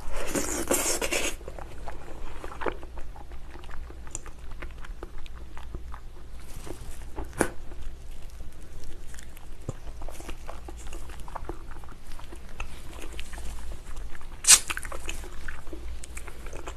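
Close-miked wet chewing and sucking of soft, gelatinous braised ox foot, full of small smacks and clicks, with a louder wet sound at the start and two sharper smacks about halfway and near the end.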